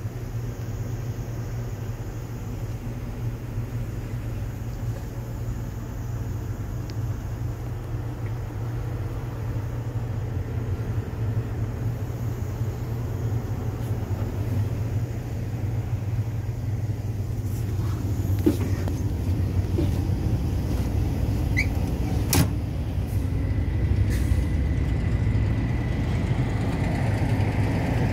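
Heavy truck diesel engine idling, a steady low rumble that grows a little louder in the second half. A few sharp clicks and a knock come in the last third, and a faint steady high tone sets in near the end.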